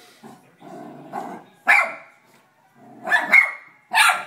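Basenji puppy barking: three loud, sharp barks about a second and a half in, past three seconds, and near the end, with quieter, lower sounds between them.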